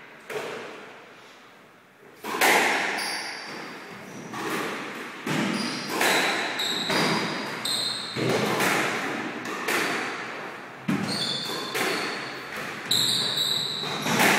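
Squash rally: the ball smacking off rackets and the court walls in quick succession, each hit echoing in the enclosed court, with short high squeaks of shoes on the floor. After a brief lull near the start, the hits come about once a second.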